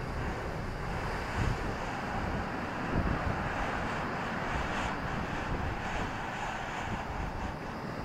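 Rough sea surf breaking and washing in around wooden groynes: a steady rush of water that swells through the middle, with wind buffeting the microphone underneath.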